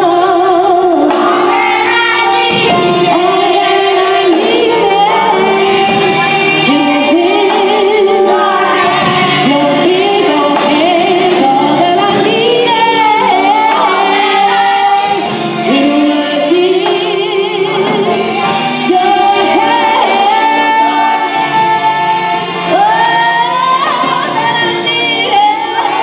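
Female gospel soloist singing through a microphone and PA, her voice wavering with vibrato and sliding through long runs.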